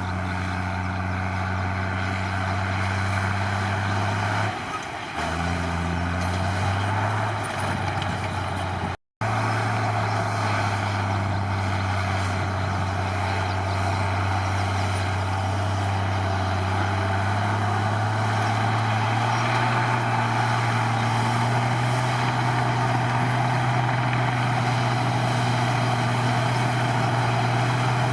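Komatsu D53 bulldozer's diesel engine running with a steady low drone. Its pitch drops and shifts for a couple of seconds about five seconds in, the sound cuts out briefly near nine seconds, and later the engine note rises a little and holds.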